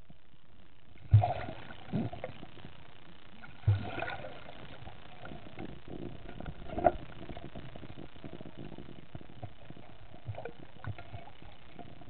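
Water noise with sharp knocks, the first about a second in, more near two and four seconds, and the loudest near seven seconds, over a steady watery crackle.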